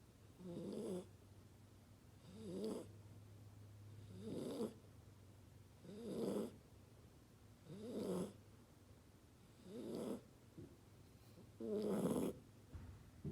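Two-month-old chocolate Labrador puppy snoring in its sleep: seven snores, evenly spaced about one every two seconds, each a short, rough breath.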